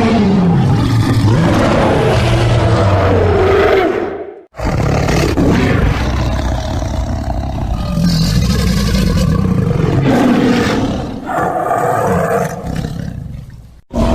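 Giant-monster (kaiju) roar sound effects: a long, rough roar that fades out about four seconds in, then a second long roar with a wavering pitch that dips briefly about eleven seconds in and fades away near the end.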